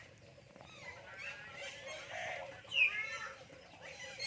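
A myna calling: a string of quick gliding whistles and chatter, loudest at a sharp rising note about three seconds in. It is part of a phrase the bird repeats.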